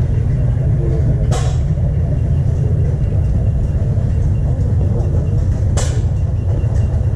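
Wind buffeting the microphone outdoors: a steady, loud low rumble, with two brief high swishes, one about a second in and one near the end.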